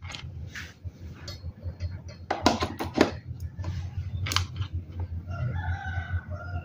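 A rooster crowing once, a held call of about a second near the end, over a low steady hum, with a few sharp clicks and knocks earlier.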